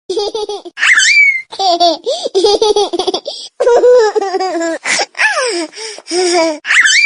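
Baby laughing in a run of short, high-pitched giggles, with squeals that rise in pitch about a second in and again near the end.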